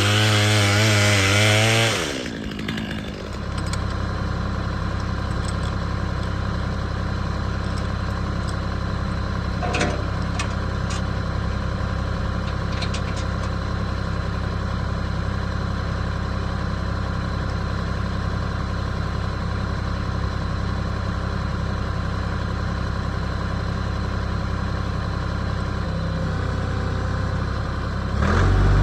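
A loud, wavering, high-revving engine stops about two seconds in; a diesel compact tractor engine, the Kioti CK3510SE, then idles steadily, growing louder again at the very end.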